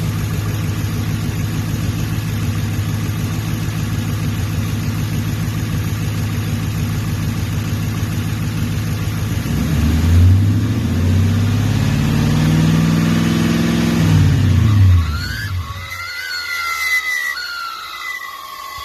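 Ford Crown Victoria's 4.6-litre V8 idling, then held at about 2000 rpm for several seconds before the key is turned off. As the engine spins down, a chirping whistle sweeps up and down in pitch for a few seconds, the sign of a bad alternator pulley.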